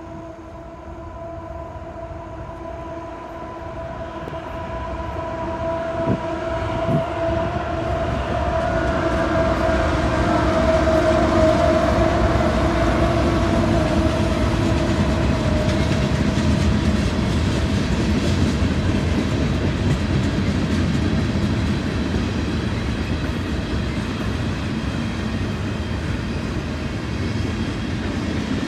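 Long freight train approaching and passing close by. A steady pitched drone from the head end grows louder, then drops slightly in pitch and fades about halfway through as it goes past. A couple of sharp knocks come around six and seven seconds in. After that comes a continuous loud rumble and clatter of freight cars' wheels on the rails.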